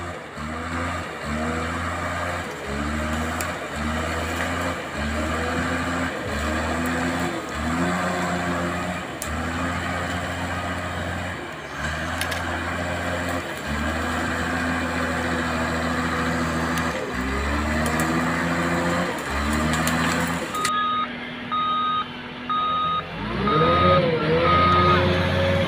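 Drive motors and metal gearboxes of an RC model bulldozer whining in repeated short spurts, the pitch rising each time it takes off. About 21 seconds in there is a steady run of evenly spaced electronic beeps like a reversing alarm, then the motors whine again, louder, near the end.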